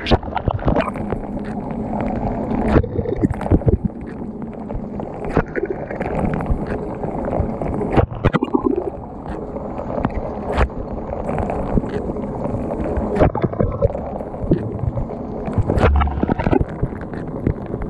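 KitchenAid KDTM604 dishwasher in its wash cycle: water jets spraying and splashing around the inside of the tub, heard from within it as a steady, muffled rush. Irregular sharp knocks come every second or two as the spray strikes.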